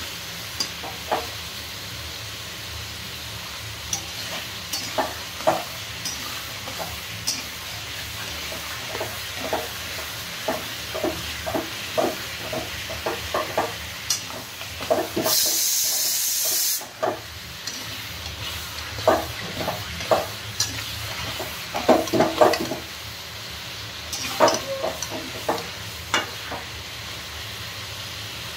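Chicken pieces sizzling as they fry in a kadai, with a slotted spatula scraping and knocking against the pan as they are stirred. About halfway through comes a loud hiss lasting about a second and a half.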